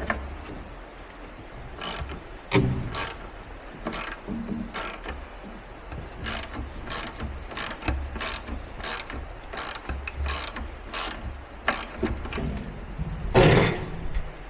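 Hand ratchet wrench clicking in a steady run of short strokes, about two a second, as a bolt is worked, with a louder metal knock near the end.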